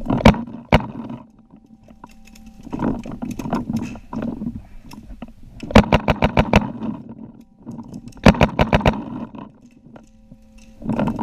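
Paintball markers firing: single shots near the start, then rapid bursts of pops at about eight or nine shots a second, twice.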